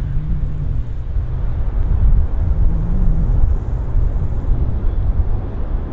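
Distant jet airliner rolling out on the runway just after touchdown, its engines a steady low rumble.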